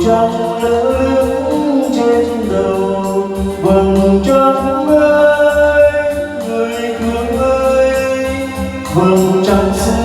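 Music: a Vietnamese ballad, with a voice holding long, gliding notes over instrumental backing and a steady bass.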